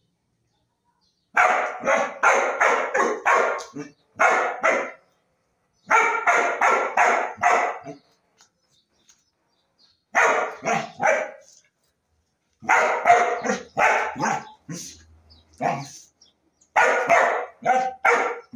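Small dog barking in quick volleys of several barks at a time, with short pauses between the volleys, while play-fighting with a cat.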